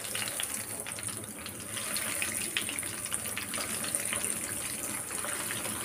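Breadcrumb-coated potato balls deep-frying in hot oil, a steady sizzle with small crackles that grows a little louder about two seconds in.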